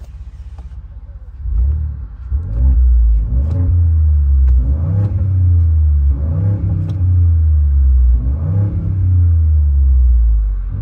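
Ford F-150's twin-turbo EcoBoost V6 through a muffler-deleted exhaust, heard from the cab with the windows down: it idles, then about a second and a half in is revved up and down several times in park to around 3,000 rpm. The exhaust note is deep and throaty.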